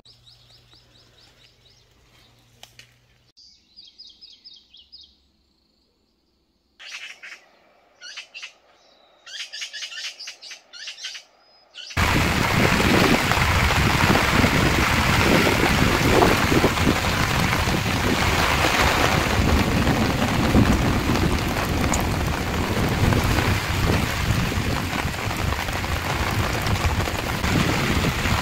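Birds chirping with short high calls over a quiet background, then from about twelve seconds in a sudden heavy downpour of rain, steady and loud, pouring on a tarp canopy over a wooden deck.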